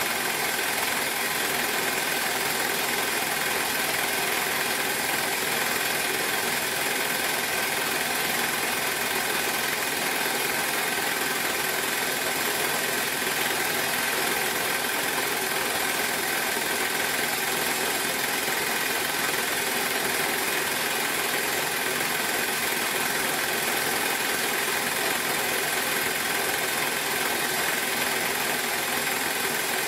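Bell & Howell Filmo Picture Master 8mm film projector running steadily, its motor and film-transport mechanism making an even mechanical hum and whir as the film plays.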